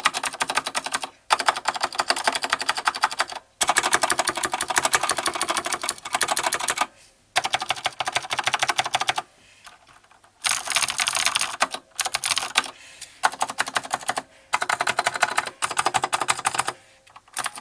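Dih Shin DS-2001 mechanical keyboard with stock vintage Cherry MX Blue switches on a steel plate, typed on fast. Dense runs of clicky keystrokes last a second or a few seconds, with short pauses between them, the longest about halfway through.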